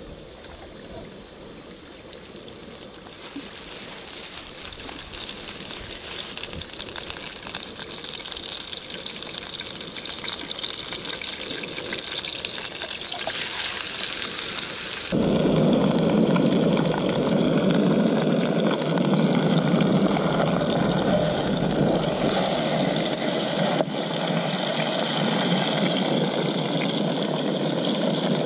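Fish frying in oil in a small pan over a camping burner, a steady sizzle that grows louder as the pan heats. From about halfway through it is heard closer and fuller.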